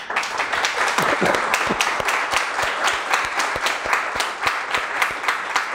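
Applause from a group of people: many hands clapping together in a dense, steady patter that starts abruptly and keeps an even level.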